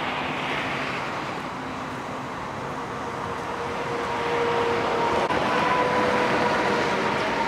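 Steady motor-vehicle and road noise, with an engine's hum growing a little louder about halfway through.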